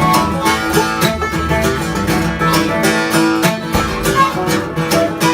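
Acoustic guitar picked and strummed in an instrumental break of a bluegrass-style country song, with a steady beat and no singing.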